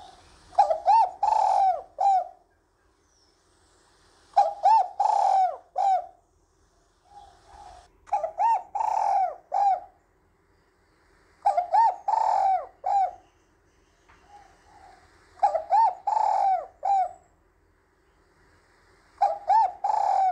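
Spotted dove cooing its song: a phrase of a few short coos and a longer one, repeated about every four seconds.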